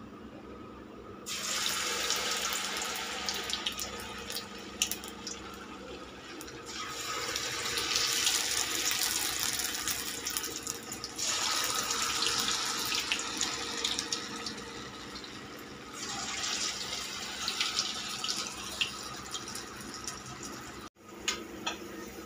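Singhara (water-chestnut) flour pakora batter sizzling and crackling in hot deep-frying oil. The sizzle starts abruptly about a second in, as batter hits the oil, and swells in several surges as more batter goes in.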